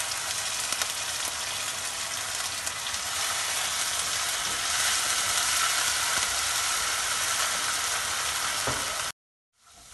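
Minced garlic and ginger sizzling in hot oil in a nonstick frying pan, stirred with a wooden spatula. The sizzle is steady and cuts out suddenly for about half a second near the end before returning.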